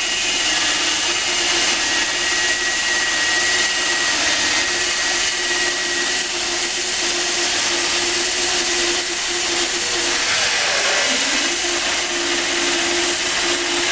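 Homemade electric band sawmill running and sawing a Torrey pine log: a steady motor-and-blade whine over the hiss of the cut. About ten seconds in, its pitch sags briefly and then recovers.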